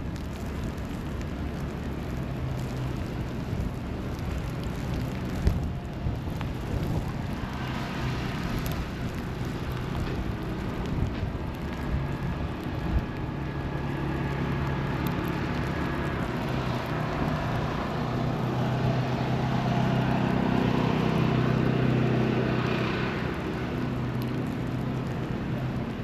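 City street traffic: a steady wash of passing vehicles, with one engine drawing near and loudest about three-quarters of the way through, then fading. A few short knocks are heard along the way.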